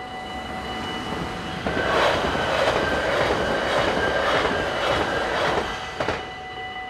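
An NS Sprinter electric passenger train passes over a level crossing at speed. A loud rush of wheels on rail with regular clatter starts about a second and a half in and lasts about four seconds, with a sharp clack near the end as the last wheels cross. The crossing's warning bell rings steadily before and after the train and is drowned out while it passes.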